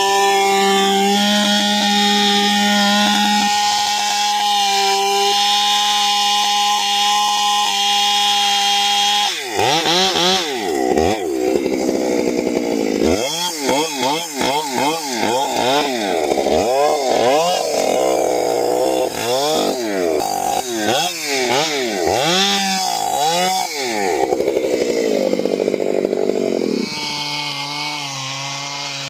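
Two-stroke chainsaw held at high revs for about nine seconds, then revved up and down again and again, dropping low between bursts and settling to a lower, steadier speed near the end.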